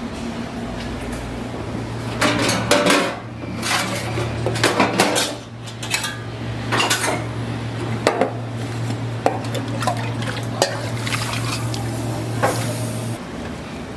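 Dishes and metal utensils clattering and clinking in bursts, over a steady low hum that cuts off near the end.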